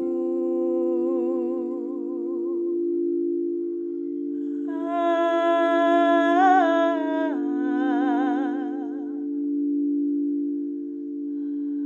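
Crystal singing bowls ringing in steady, sustained tones, with wordless vocal toning over them that wavers with vibrato in separate phrases. A higher, louder phrase comes near the middle.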